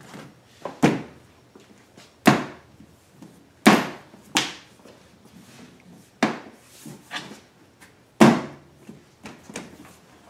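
Plastic side cover of a DuroMax XP16000iH generator being pressed and snapped back into place by hand: about seven sharp knocks and snaps at irregular intervals.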